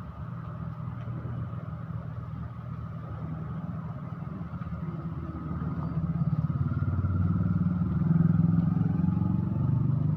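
A heavy vehicle's engine running with a low, pulsing throb, growing louder about six seconds in.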